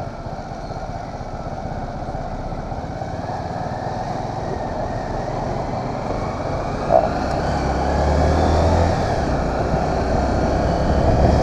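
Motorcycle engine running at low speed in town traffic, slowly getting louder as the bike picks up speed, with one brief knock about two-thirds of the way through.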